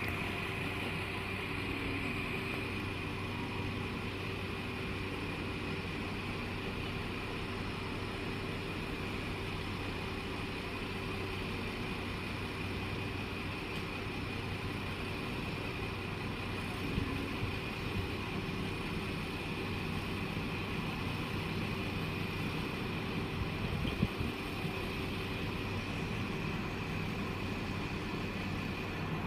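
Class 172 Turbostar diesel multiple unit idling at the platform: a steady diesel engine hum with a constant high whine above it and a couple of faint knocks.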